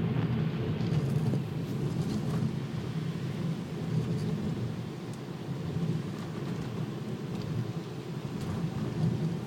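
Steady low rumble of a car driving on a wet road, heard from inside the cabin: tyre and engine noise.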